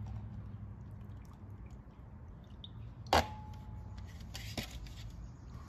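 Water being poured into the intake ports of a 2.0T TFSI cylinder head to leak-test the intake valves, quiet trickling and dripping over a low shop hum. A single sharp knock with a short ring about three seconds in, then a few small ticks.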